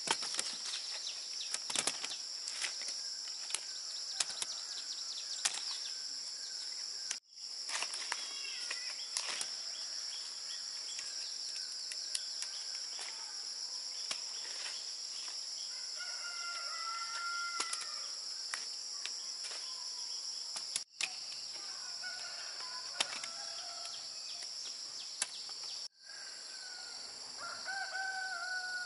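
Steady high-pitched insect drone, cicadas or crickets, with scattered sharp clicks and rustles, thickest in the first half. Mid-way and again near the end, a bird gives falling drawn-out calls, like a distant rooster crowing. The sound cuts out briefly three times.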